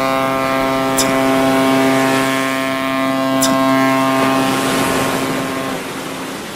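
A ship's horn sounding one long steady blast, fading out near the end.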